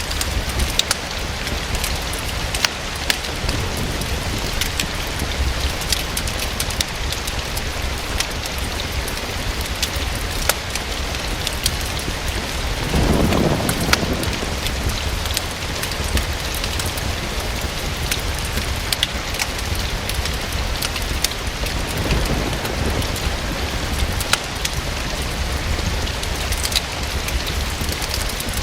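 Steady rain falling, mixed with scattered sharp pops and crackles from a wood fire burning in a fireplace. A brief low rumble comes about halfway through.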